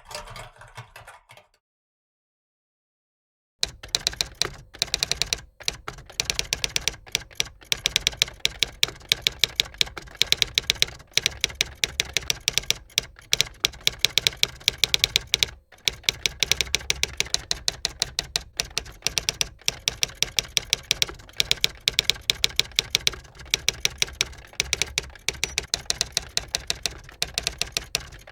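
Rapid typing clicks, many a second, starting about three and a half seconds in after a short silence and broken by brief pauses every second or two.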